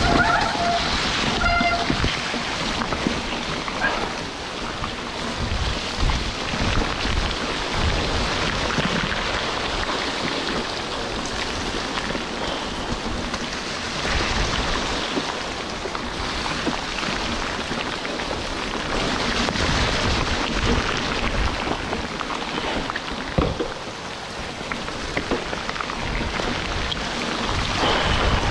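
Heavy tropical downpour pelting down, heard as a dense steady hiss, with uneven low rumbling and knocks underneath from riding a mountain bike over a rough, wet trail.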